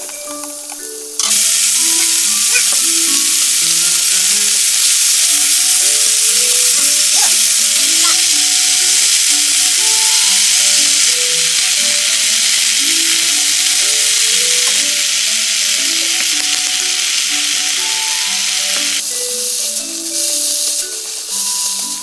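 Sliced onion and carrot dropped into a hot pan, sizzling loudly as they stir-fry. The sizzle starts suddenly about a second in and dies down near the end.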